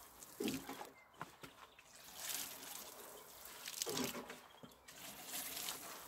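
Water pattering from a watering can's sprinkler rose onto bare soil, coming in spells as the can is tipped, with a few dull knocks, the loudest about half a second in.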